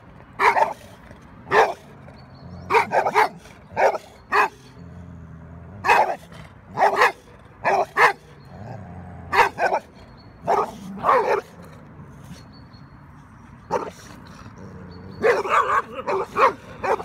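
Dogs barking: loud single barks and quick runs of two or three, spaced irregularly, with a denser flurry of barking near the end.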